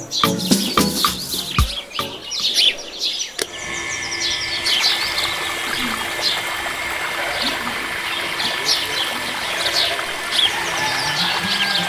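Steady splashing of water pouring from a miniature toy water pump into a small pond, starting about three and a half seconds in, with a faint steady motor hum. Birds chirp throughout, and a few sharp clicks at the start.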